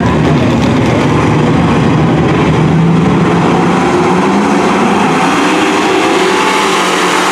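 A pack of dirt-track race trucks going by together, many engines running loud at once, their pitch rising and falling as they drive through the turn.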